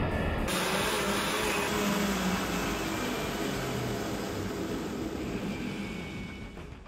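Treadmill motor and belt running steadily under a Lego Technic bulldozer, the sound slowly dying away near the end as the treadmill is stopped.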